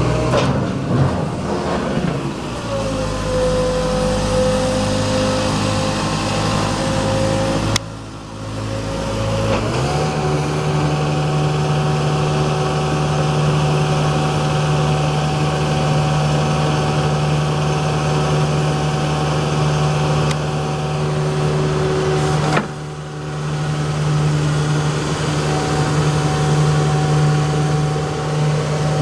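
Manitou MT1440 telehandler's diesel engine running and revving as it works the loader bucket, with steady tones over the engine note. The note steps up about ten seconds in, and the sound breaks off suddenly twice.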